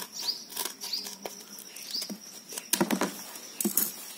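Scissors cutting through the taped plastic-and-paper mailer: a handful of sharp snips and crackles, loudest as a cluster about three quarters of the way through. A few faint short bird chirps sound in the background.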